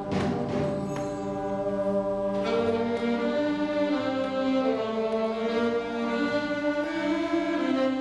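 A school concert band playing, woodwinds and brass holding sustained, shifting chords. A few sharp percussion strikes sound in the first second, and the sound fills out in the upper range from about two and a half seconds in.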